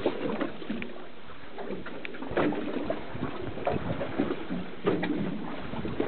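Boat at sea: water sloshing and splashing against the hull, with scattered irregular knocks.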